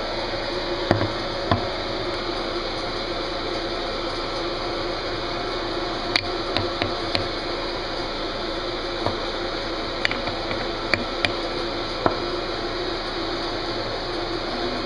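Scattered light clicks and taps of a metal espresso portafilter being handled on a stone countertop, a few at a time and then a short cluster, over a steady background hum.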